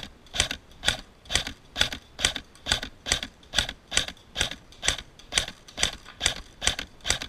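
KWA H&K G36C airsoft electric rifle with a metal gearbox firing on semi-auto: a steady run of single shots, about two a second.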